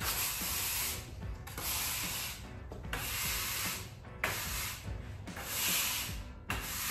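Push broom's bristles sweeping a concrete shop floor: about five scraping strokes, each about a second long.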